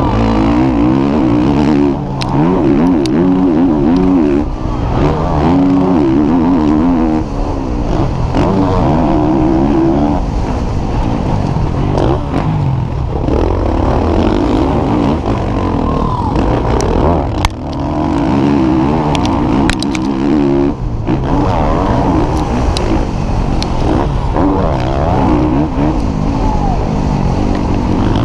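Motocross bike engine heard on board at racing speed, revving hard and dropping back again and again through gear changes and corners. Short knocks from the track are mixed in.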